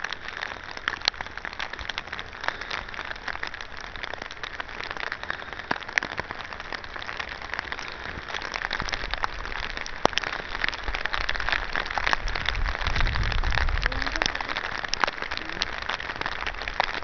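Steady rain, with many drops pattering sharply close by. It grows louder about halfway through, when a low rumble joins it.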